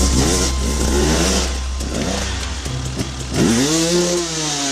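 Dirt bike engines revving hard as the bikes climb over rocks, the pitch swinging up and down with the throttle, with one long rise and fall about three and a half seconds in.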